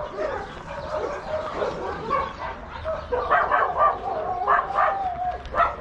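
Many shelter dogs barking and yapping together, with one dog giving a long held cry about two-thirds of the way through.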